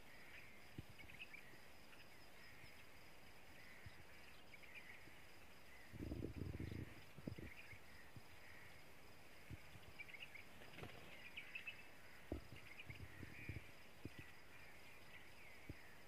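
Quiet outdoor ambience: faint, short, high chirping calls repeating every second or two, a brief low rumble about six seconds in, and a few soft knocks.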